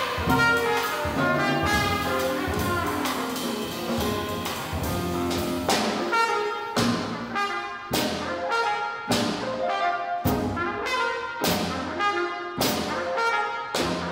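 Live jazz quartet playing: trumpet lead over piano, upright bass and drums. From about six seconds in, the band plays sharp accented hits about once a second.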